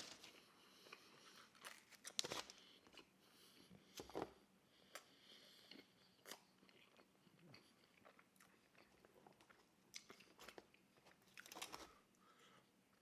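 Faint close-up chewing and biting of thin-crust pizza: soft wet mouth clicks and short crunches, with the strongest bites about two and four seconds in and again near the end.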